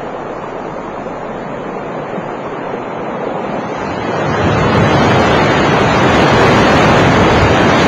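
Sea surf washing, swelling louder about halfway through as waves break against sea cliffs.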